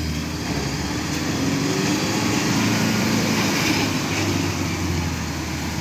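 Tata Yodha pickup's diesel engine working under load as it pulls through deep mud, the revs rising and falling.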